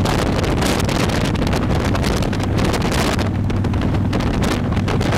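Wind rushing over the microphone at road speed, over the steady low drone of a motorcycle engine at cruising speed.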